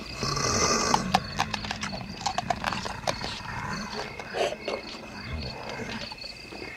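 Crunching and chewing of cooked meat, bones and all, eaten by hand: a quick run of sharp cracks in the first half, with low grunts from the eater. Crickets chirp steadily in the background.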